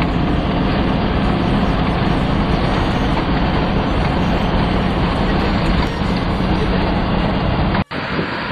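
Off-road vehicle driving, its engine running steadily under loud rumbling road and wind noise. Near the end the sound breaks off abruptly and resumes rougher and more wind-blown.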